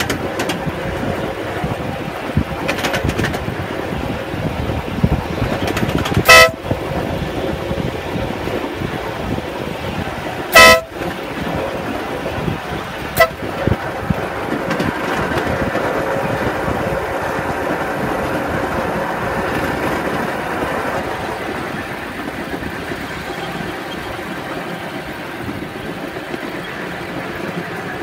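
Miniature railway train running along its track, with a steady running noise from wheels and rails. The locomotive's horn gives two loud short toots, about six and ten seconds in, and a brief fainter toot about thirteen seconds in.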